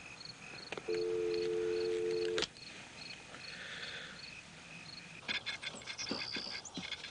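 Landline telephone dial tone, a steady two-note hum lasting about a second and a half, cut off by a click as the handset is hung up. Crickets chirp faintly behind it, and near the end come a few light clicks and taps.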